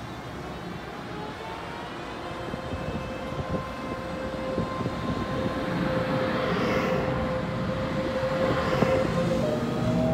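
Taiwan Railways EMU500 electric multiple unit pulling away from a station and picking up speed: a steady electric traction-motor whine over wheel-on-rail rumble, growing louder as the cars pass. Near the end the whine rises a little in pitch.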